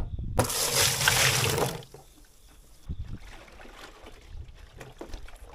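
Water poured into a large plastic water vat for about a second and a half, then quieter sloshing and small knocks inside the vat as it is rinsed out.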